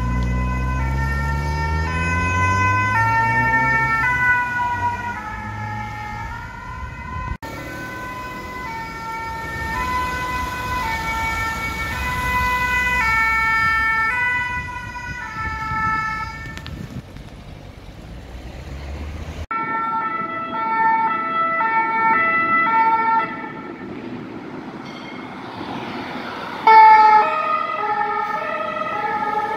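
French two-tone emergency sirens sounding their alternating two-note call as a fire-brigade ambulance van and a SAMU car pass, in several successive clips that change abruptly about 7, 19 and 27 seconds in. Engine and traffic rumble underneath is heaviest in the first few seconds, and the last clip is the loudest.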